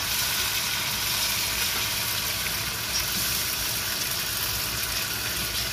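Masala-coated fish pieces shallow-frying in hot oil in a pan, with a steady sizzle; the fish is nearly done.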